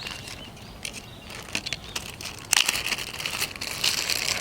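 Plastic food packaging crinkling and rustling as cat food is got out, in scattered crackles at first, then louder and denser from about two and a half seconds in.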